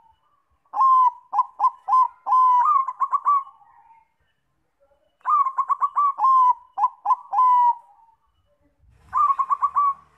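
Bangkok-type zebra dove (perkutut) singing its cooing song. It gives three phrases of quick, clipped notes, the first two lasting about three seconds each and a shorter one near the end.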